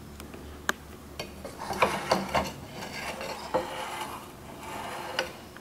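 Light knocks, clinks and scraping of ceramic sushi plates being handled and shifted on a slatted tray, in two short flurries with a few separate clicks between.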